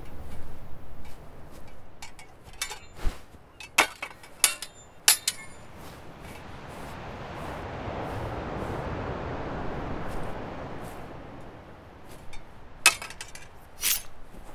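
Steel swords and bucklers clashing in a sword-and-buckler fight: a quick run of sharp metallic clinks from about two to five seconds in, then two more clashes near the end. In between, a broad rush of noise swells up and dies away.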